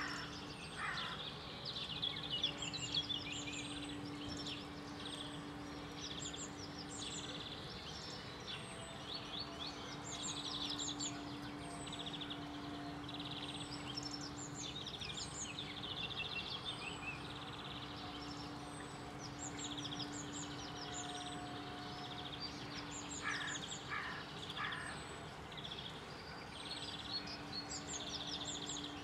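Several small birds chirping and singing in quick, high repeated notes, with a few lower whistled phrases around the start and about 23 seconds in, over a faint steady hum.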